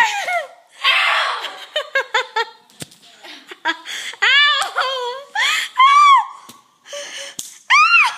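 Girls laughing hard: a string of short, high-pitched giggles and squeals.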